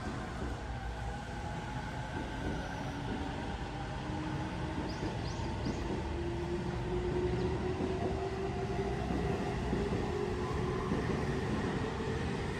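Electric train running, with a motor whine that rises slowly in pitch over a steady rumble, getting gradually louder.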